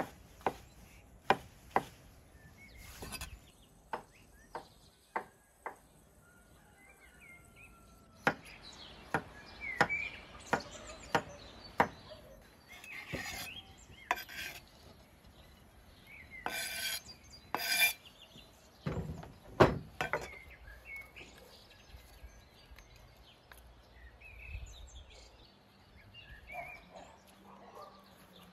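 Knife chopping mushrooms on a thick wooden cutting board, sharp single chops about twice a second, stopping and starting again. The chopped pieces are then scraped across the wood into a clay bowl with rasping strokes, followed by two heavy thumps. Birds chirp faintly near the end.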